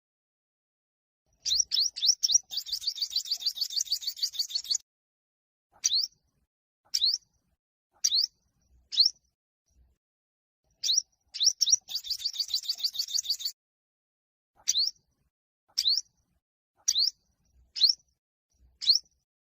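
Yellow-bellied sunbird singing. It gives sharp, high chirps that sweep upward, roughly one a second. Twice it breaks into a fast rattling trill lasting two to three seconds, the first just after the start and the second about halfway through.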